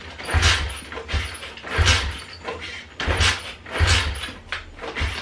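Turbocharged Loncin pit bike engine being kicked over repeatedly with the kick-starter, about seven regular pulses with a low thump and a hiss each. The engine turns over without firing.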